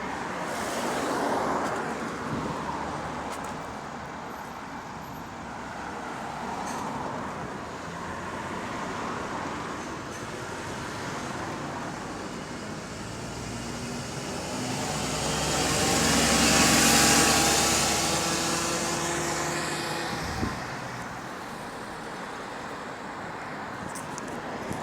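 Double-decker bus (a VDL DB250) running on the road, heard with general traffic noise. Its engine note swells with a rising pitched drone and hiss about two-thirds of the way through, then eases off. The bus is reported as running in limp mode with a bad turbo.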